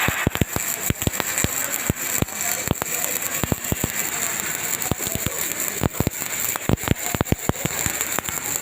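Electric arc welding: a steady hissing crackle with many irregular sharp pops.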